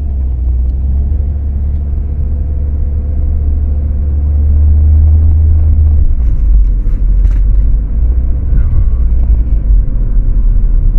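Low road and drivetrain rumble inside the cabin of a moving 2012 Ford Focus automatic. About six seconds in the rumble drops deeper and gets a little louder, and a few faint clicks follow.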